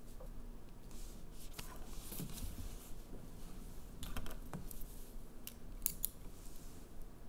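Pen and paper handled on a wooden table: a few brief, soft scratches and rustles, with a small cluster about four seconds in and two sharp ticks near six seconds.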